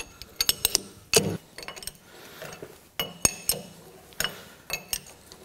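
Steel open-end wrench clinking against the small hold-down nuts and the lathe's compound rest as the nuts are started on their bolts: a string of irregular sharp metallic clinks, some with a short high ring.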